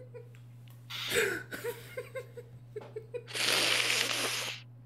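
Laughter trailing off in short, rhythmic bursts, over a steady low hum. Near the end comes about a second of loud hissing noise.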